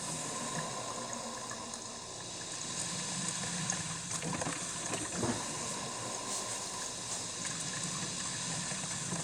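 Cuisinart drip coffee maker brewing, its heated water running through the machine with a steady watery noise.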